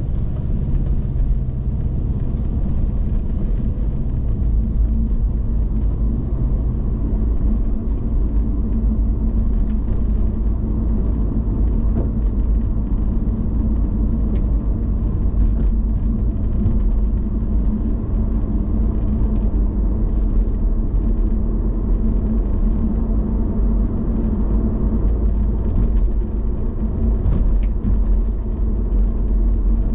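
Subaru Impreza WRX STI on the move: its turbocharged flat-four engine runs with a steady low rumble over road noise.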